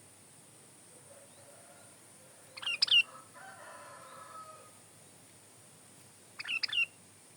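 Sooty-headed bulbul (kutilang) singing: two short, bright phrases about three and a half seconds apart.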